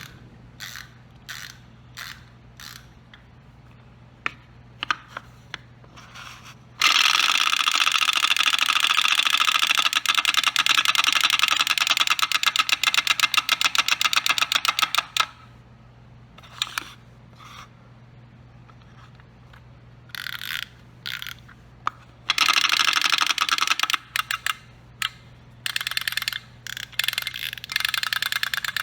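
Wind-up chattering teeth toy: scattered single clicks, then a fast, even plastic clatter for about eight seconds, followed by several shorter bursts of clattering near the end.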